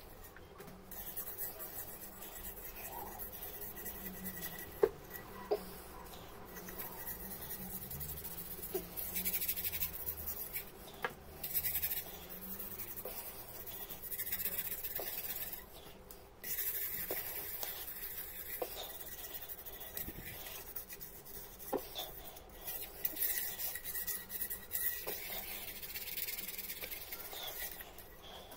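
Half a lemon scrubbed over a tarnished copper bowl: a rubbing, scratchy sound in bursts with brief pauses, with a few light knocks of the bowl, the sharpest about five seconds in.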